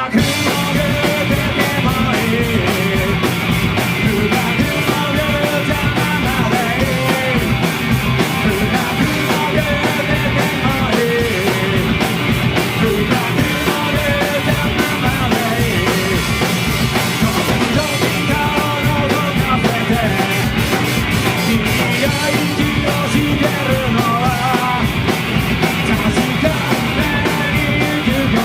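A live rock band of electric guitars, bass guitar and drum kit playing a fast, driving song at a steady loud level.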